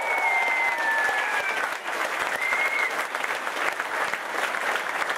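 An audience in a hall applauds with steady clapping. A few high sliding calls rise over the clapping in the first couple of seconds and again briefly around the middle.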